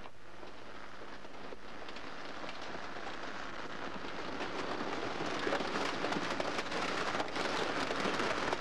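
Car body being crushed in a scrapyard car crusher: a dense crackling and crunching of crumpling sheet metal and breaking glass, growing slowly louder.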